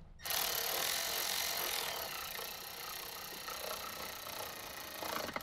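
Cordless electric screwdriver running steadily as it drives a bolt on top of the dash, a whir that starts abruptly, fades slightly over about five seconds and cuts off just before the end.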